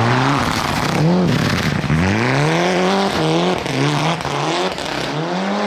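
Mitsubishi Lancer Evolution rally car's turbocharged four-cylinder engine at full throttle while the car slides on snow, its note climbing and dropping several times with throttle lifts and gear changes.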